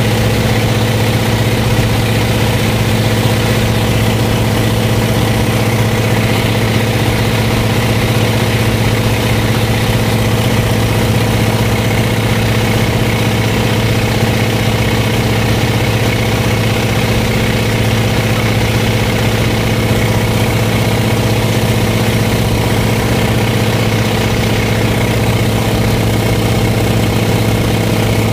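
Float plane's engine and propeller running steadily in flight: a loud, even drone that holds one pitch, with no change in power.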